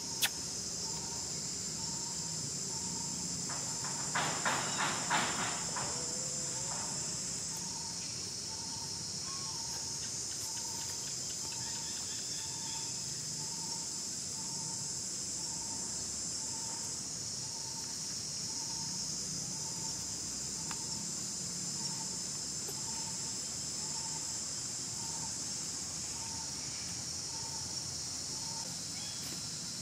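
Steady high-pitched drone of an insect chorus with a faint soft note pulsing underneath about every two-thirds of a second. About four seconds in, four short high calls come in quick succession.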